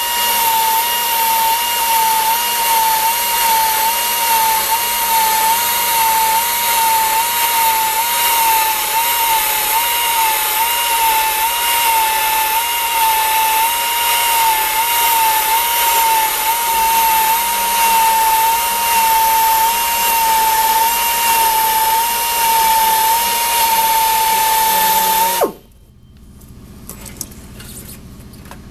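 Low-speed tire buffer with a texture wheel running steadily against a tire's inner liner, a loud whine with a slight regular wobble. About 25 seconds in it shuts off and its pitch drops briefly as it spins down.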